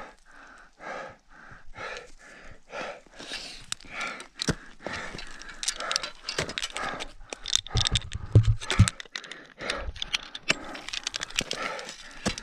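A mountaineer panting hard and fast from climbing exertion at high altitude, roughly two breaths a second. Sharp clicks and knocks of climbing gear come through the breathing, with a short run of dull low thumps about eight seconds in.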